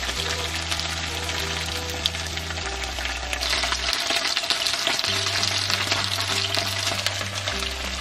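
Chicken karaage shallow-frying in a little olive oil in a frying pan, a steady sizzle as the pieces are turned in the pan. The sizzle grows louder about three and a half seconds in.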